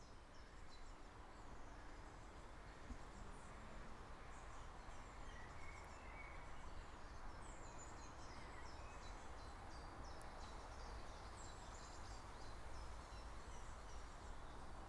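Faint background ambience: a steady hiss with many small high chirps, like birds chirping, throughout.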